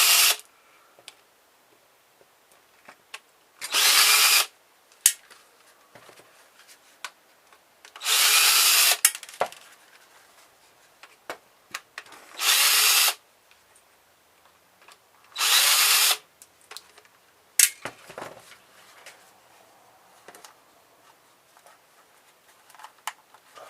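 Power drill-driver running in short bursts of about a second each, four times, backing screws out of a car stereo's metal casing. A few sharp clicks fall between the bursts.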